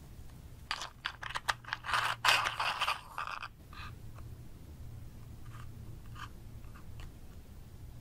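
Plastic breadstick-and-chocolate-dip snack cup handled close to the microphone: a quick run of crackling clicks and scrapes for about three seconds, then a few faint taps.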